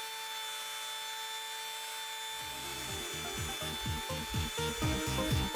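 Dremel-type rotary tool spindle on a Shapeoko 2 CNC mill running at speed with a steady high whine as it carves wood. About two and a half seconds in, music with a beat fades in and grows louder over it.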